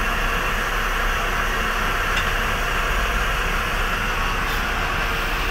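Steady mechanical noise with a low hum underneath, even throughout, with no clear rhythm or change.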